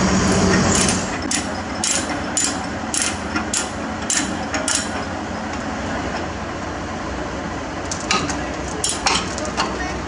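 Sharp metallic clanks of a tie-down chain and lever load binder being worked, about two a second for a few seconds, then another short run near the end.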